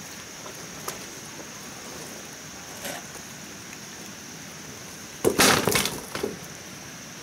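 Dry bamboo knocking and crackling in one short, loud clatter about five seconds in, with a few faint clicks before it. A steady high insect drone runs underneath.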